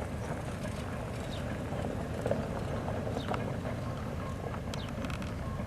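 3TE10M diesel locomotive with its 10D100 two-stroke opposed-piston diesel engines running, a steady low rumble with scattered clicks and knocks over it.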